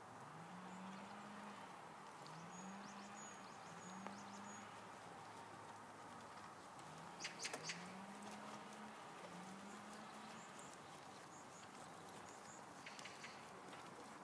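Faint outdoor quiet with a bird's low hooting call repeated about every one to two seconds, each note rising and then holding. A few thin high chirps come around three to four seconds in, and a short cluster of clicks about halfway.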